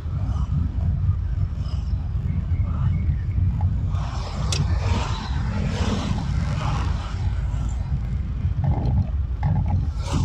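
A car driving on a busy city road, heard through its dashcam: a steady low rumble of engine and tyres. Traffic noise swells in the middle, with a sharp click about four and a half seconds in.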